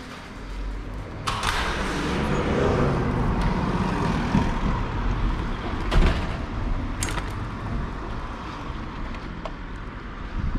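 A glass entrance door being pushed open about a second in, letting in a steady rush of outdoor street noise. Two sharp knocks follow, about six and seven seconds in.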